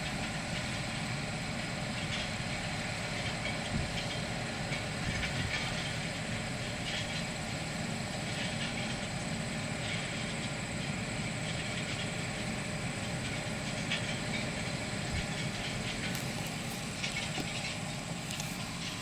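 Railroad maintenance-of-way machines running on the track: a steady engine drone with hiss and scattered clicks and clanks.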